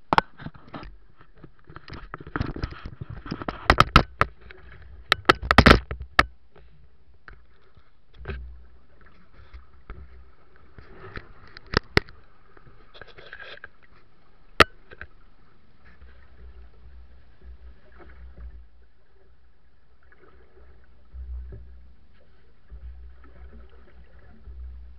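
Sea water sloshing against the hull of a small open fishing boat, with a low rumble. Sharp knocks sound on the boat in a cluster during the first six seconds and a few more up to about fifteen seconds in.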